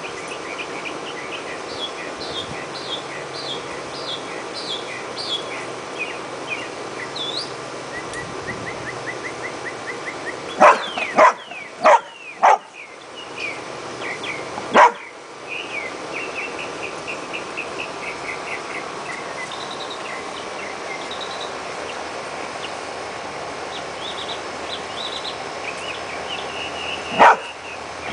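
Airedale terrier barking: four sharp barks in quick succession about eleven seconds in, one more a couple of seconds later, and another near the end. Between the barks, small birds chirp over and over.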